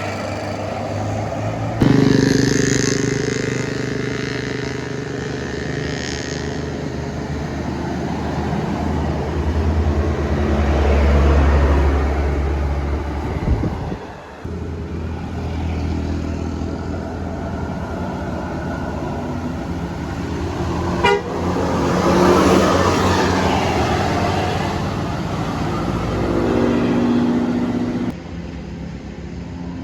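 Tour buses passing with Basuri telolet horns sounding, multi-tone musical horn calls over the low rumble of the bus engines. The horn tones come a couple of seconds in and again near the end, and the engine rumble swells loudest as a bus goes by in the middle.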